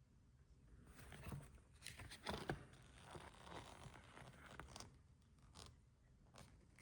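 Faint, irregular scraping and rustling, a few soft scrapes loudest about two seconds in, with no steady rhythm.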